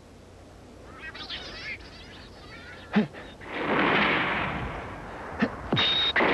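Staged pyrotechnic explosions: a sharp bang about three seconds in, followed by a long rushing blast, then more sharp cracks and another blast near the end. A brief wavering high sound comes about a second in.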